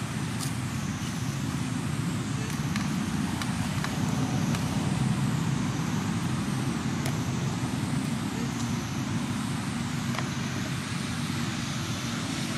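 Steady low outdoor rumble like distant road traffic, with a faint high whine that swells and fades about every two seconds and a few faint ticks.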